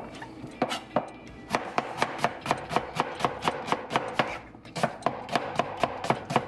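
Chef's knife slicing a red onion on a plastic cutting board: the blade knocks on the board in a quick, even rhythm of about four strokes a second, slower at first, with a brief pause a little past the middle.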